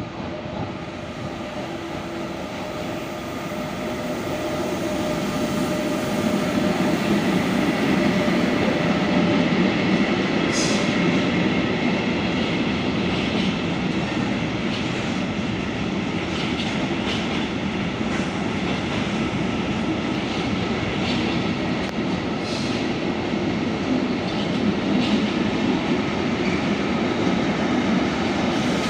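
Train running along the track, growing louder over the first several seconds and then holding steady, with a few sharp clicks from the wheels on the rails.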